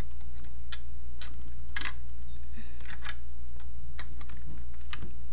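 Irregular light clicks and taps of plastic Lego pieces being handled, a cluster about halfway through and several more near the end, over a steady low hum.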